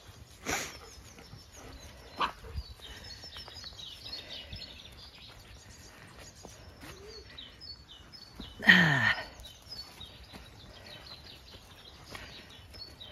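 Faint birdsong over quiet farmland, with one loud animal call about nine seconds in whose pitch drops over about half a second.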